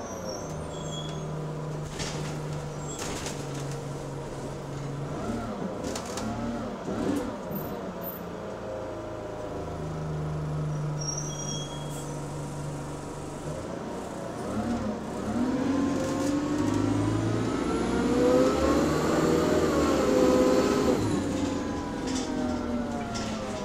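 A single-deck bus engine heard from inside the saloon, ticking over with a low steady hum. A little past halfway the bus pulls away and the engine moan rises in pitch and loudness for several seconds, with a thin whine climbing above it, then drops back near the end.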